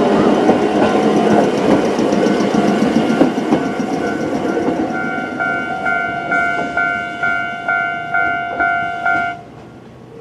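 Choshi Electric Railway 2000-series train rolling past over the level crossing, its wheel noise with irregular knocks fading away, while the crossing's electronic warning bell rings at about three strikes a second. The bell cuts off abruptly about nine seconds in, as the crossing clears.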